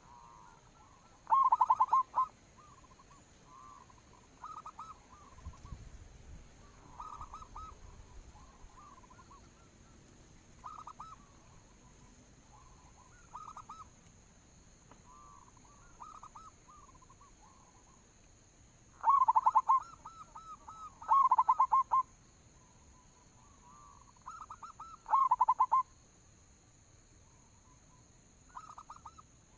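Zebra doves (perkutut) cooing: phrases of rapid, rippling coo notes, four loud phrases with fainter ones in between.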